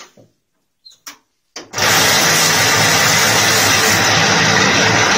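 Automatic wall plastering machine switching on under load about a second and a half in and running with a loud, steady mechanical noise, a constant low hum under a hiss. A few short knocks come before it starts.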